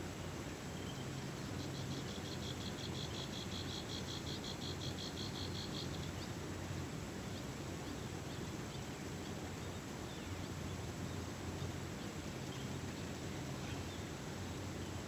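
An insect trilling in a rapid, even pulse for about four seconds, starting a couple of seconds in, over a steady outdoor background hiss.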